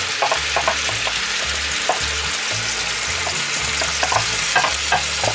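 Diced peppers, onions and tomatoes sizzling in hot oil in a cast-iron Dutch oven, with a wooden spatula scraping and tapping as more vegetables are pushed in from a plastic container. The sizzle is the sign that the oil is hot enough.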